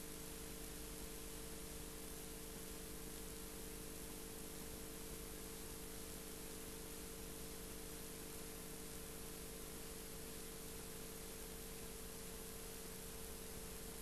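Steady hiss with a low electrical hum of a few steady tones, unchanging throughout: the background noise of the recording itself, with no other sound.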